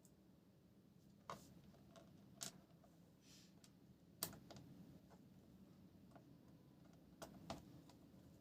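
About half a dozen sharp clicks and taps on a laptop, irregularly spaced over a near-silent background, the loudest about four seconds in.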